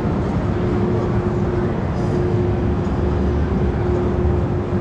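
Steady mechanical rumble of a Zamperla Nebulaz ride in motion, heard from on board, with a constant low hum and the general din of a busy exhibition hall.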